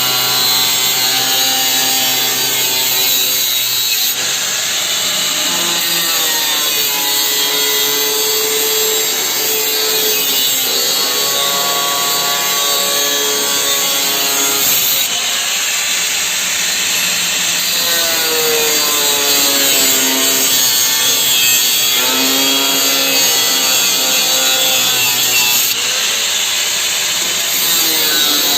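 Angle grinder cutting, a steady high hiss of the cut under the motor's whine. The whine's pitch repeatedly sags and recovers as the disc is pressed into the work and eased off.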